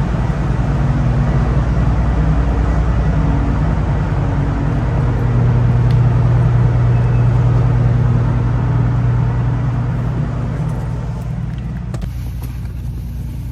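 The ferry's engines droning low and steady through the enclosed car deck, swelling a little around the middle. The sound changes abruptly near the end.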